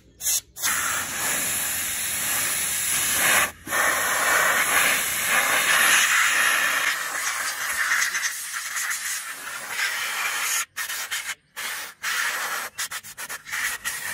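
Compressed-air blow gun blowing dust off an old CRT television's circuit board: a loud, steady hiss of air with a few brief stops, which come quickly one after another in the last few seconds.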